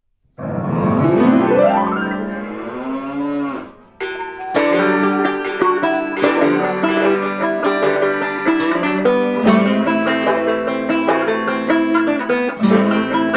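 Bluegrass-style background music with banjo and guitar picking. After a short dropout at the start, a long wavering, sliding tone plays for about three seconds, then the picking resumes.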